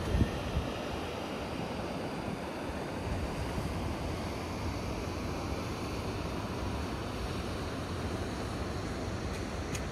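Steady rush of a large waterfall pouring over rock, with a few gusts of wind on the microphone near the start.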